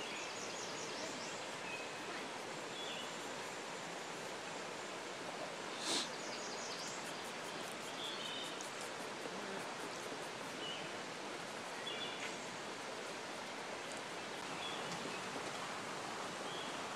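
Creek water flowing in a steady rush, with short high bird chirps now and then and a single sharp tap about six seconds in.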